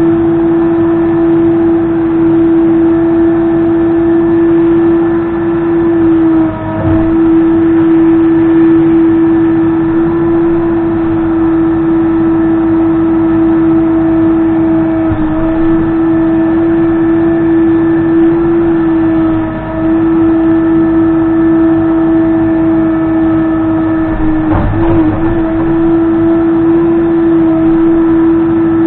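Case 580N backhoe loader's diesel engine running steadily at high revs with a strong steady whine. The pitch dips briefly a few times, with a low thud about 7 seconds in and again near 25 seconds.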